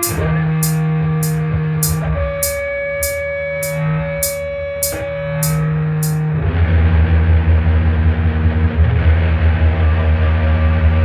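Instrumental music: held guitar notes over a sharp tick about three times a second, then about six seconds in a louder, denser section with a heavy low end comes in.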